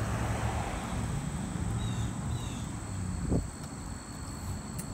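Outdoor ambience by a creek: a steady low rushing noise under a steady high insect drone, with two short falling bird chirps about two seconds in and a brief thump a little after three seconds.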